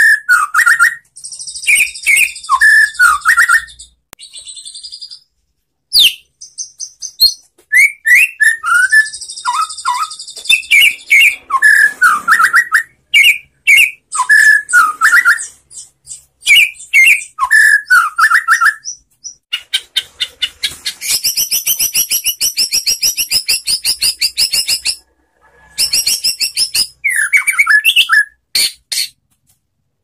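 White-rumped shama singing: phrases of rich whistles that slide up and down, alternating with fast, high chattering trills. About two-thirds of the way through comes a long, rapid rattling phrase.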